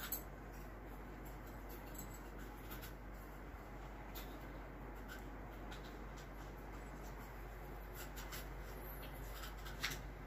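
Quiet room tone: a steady faint hiss with a few light clicks and rustles, the sharpest click near the end.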